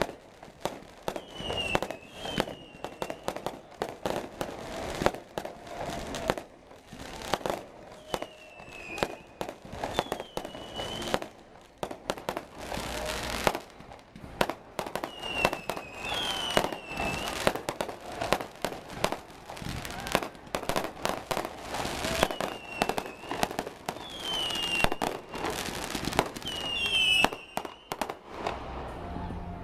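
Aerial fireworks display: a continuous run of bangs and crackles, with a short high whistle that dips and rises heard every few seconds.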